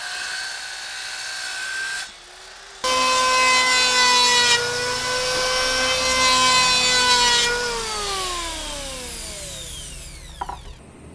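A circular saw runs for about two seconds. Then an electric hand planer shaves a wooden board with a loud, steady whine and hiss. About eight seconds in it is switched off and winds down, its pitch falling for about three seconds, with a light knock near the end.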